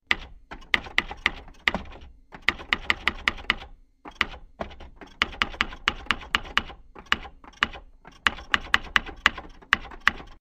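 Typing sound effect: rapid sharp key clicks in bursts, with brief pauses about two and four seconds in.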